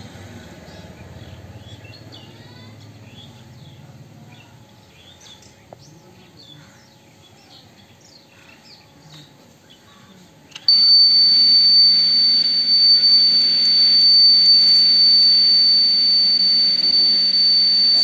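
Birds chirping, then about ten seconds in a piezo buzzer starts a loud, steady high-pitched tone. Under it a small DC water pump runs with a steady hum. The alarm has been set off by a candle flame heating its sensing strip.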